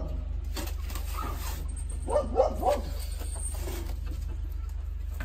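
A dog barking, three quick barks about two seconds in, over a steady low hum.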